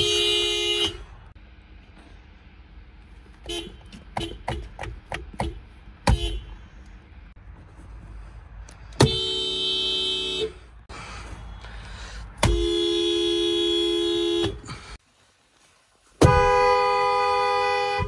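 Car horns of several Japanese cars, Hondas among them, each pressed in turn: a blast of just under a second, a run of quick short taps, then three longer steady blasts of about two seconds each. Each horn sounds two close notes at once.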